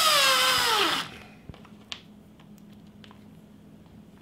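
Milwaukee 18V cordless drill driving a screw into a cabinet-door hinge: the motor whine sinks in pitch under load and stops about a second in. A couple of light clicks follow.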